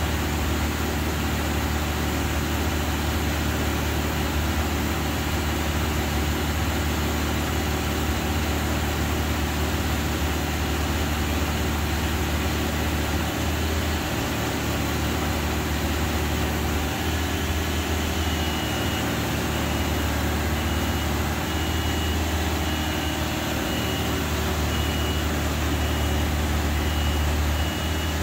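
Genie S-85 telescopic boom lift's engine running steadily. A bit past halfway a high-pitched warning beeper starts, sounding about once a second.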